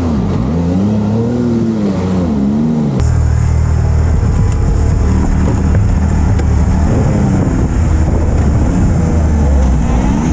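Can-Am Maverick side-by-side's turbocharged three-cylinder engine heard from the cockpit. For about three seconds it revs up and down repeatedly, then it runs lower and steadier, climbing again toward the end.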